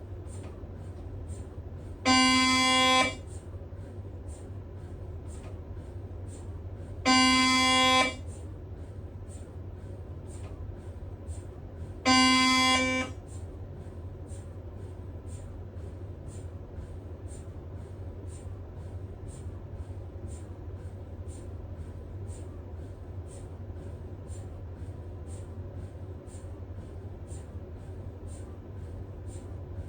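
Siemens Magnetom Spectra MRI scanner's gradient coils sounding three loud pitched buzzing tones, each about a second long and about five seconds apart, over a steady low hum and a faint regular ticking about twice a second.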